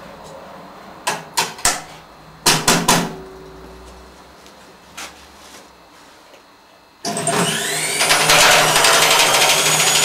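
A few knocks and a click on the bare washing machine drum rig, then about seven seconds in its motor switches on suddenly: a whine rising in pitch as the drum spins up, over a loud, fast rattle from the drum shaking in its open frame.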